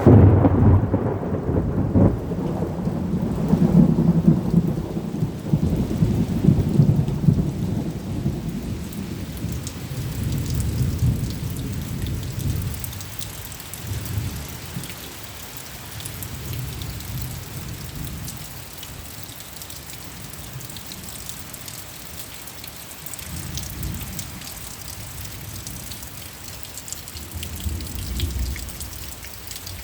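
Heavy rain with thunder: a loud crack and long low rumble of thunder at the start, fading over about ten seconds, then steady rain with drops pattering, and another rumble of thunder building near the end.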